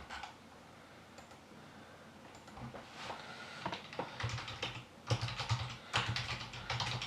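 Typing on a computer keyboard: a few scattered keystrokes at first, then quick runs of keys in the last few seconds.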